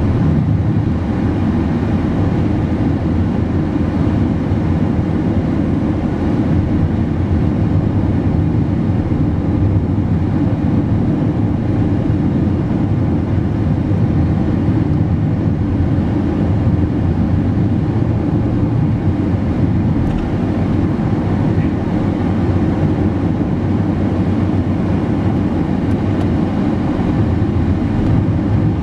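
Steady low rumble of a car driving at highway speed, tyre and wind noise without a break.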